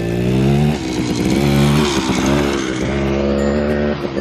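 Dirt bike engine revving hard as it rides up the dirt track and passes close. Its pitch climbs and drops back a few times as the rider shifts up, and it grows louder as the bike approaches.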